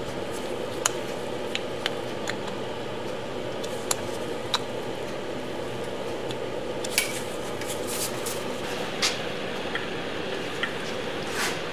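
Light metallic clicks and taps as a machined steel hub is slid on and off an electric motor's shaft and handled, scattered irregularly over a steady background hum, with a short scrape near the end.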